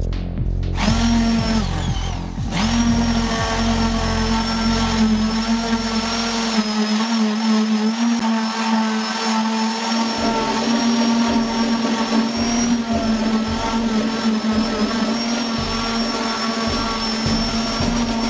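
Electric random orbital sander running on a wooden board, a steady motor hum with the rasp of the sanding pad on the wood. It comes up to speed about a second in, dips briefly around two seconds in, then runs steadily.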